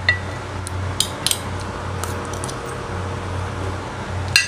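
A spoon and fork clinking and scraping against a plate while eating rice: a scatter of sharp clicks, the strongest near the start and just before the end, over a steady low hum.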